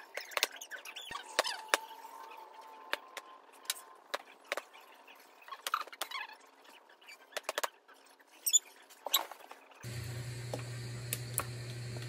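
Scattered sharp clicks, taps and short squeaks of cloth baby handkerchiefs being handled on a wire clothes drying rack. About ten seconds in, a steady low hum starts, with a few light clinks.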